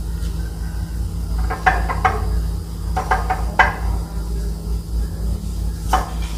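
Metal spoons tapping and scraping against a ceramic plate and a bowl as food is scooped and served, a few light clinks in short clusters over a steady low hum.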